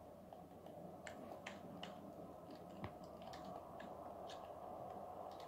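Faint, scattered light clicks and taps from an 'oddly satisfying' skateboard-deck video of hands handling a deck, played through a tablet speaker, over a low steady hum.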